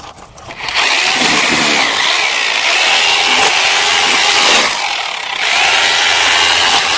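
Power drill with a hole saw boring through brick, grinding under load from about a second in. It eases off briefly about five seconds in, then bites again.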